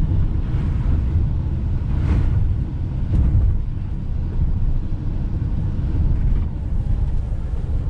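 Steady low road and engine rumble of a Ram ProMaster van driving, heard inside the cab.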